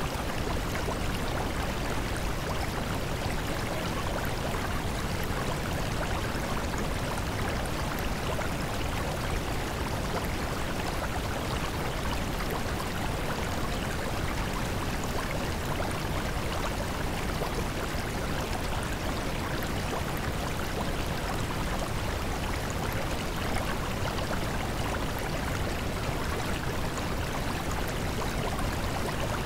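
Steady, even rushing noise with no rhythm or change, the masking bed of a subliminal affirmations recording.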